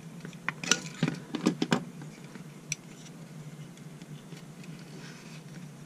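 Scattered light clicks of a hand tool on wire, several in quick succession in the first two seconds and one more a second later: insulation being stripped off the end of a hookup wire.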